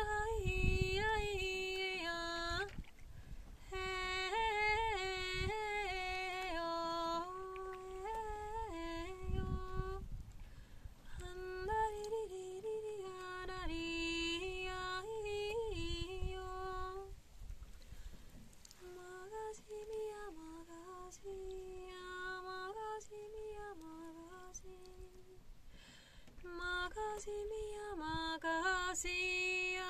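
A woman singing alone without accompaniment: a slow folk melody of long held notes, sung in phrases with short pauses between them.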